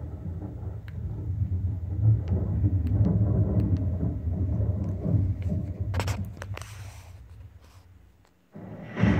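Recorded thunder played back by an Arduino-driven storm cloud lamp to go with its lightning flash: a long low rumble that swells a couple of seconds in, then fades away over the last few seconds, with a few sharp clicks along the way. A new loud burst of sound starts just before the end.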